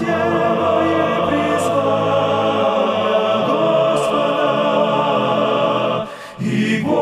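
Layered, choir-like vocal harmonies of a worship song holding slow chords without distinct words. The sound drops away briefly about six seconds in before the voices come back.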